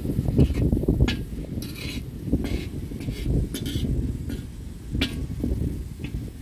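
Metal spatula scraping and clinking against a large metal pot as fried rice is stirred, a stroke every second or so, over a steady low rumble of wind on the microphone.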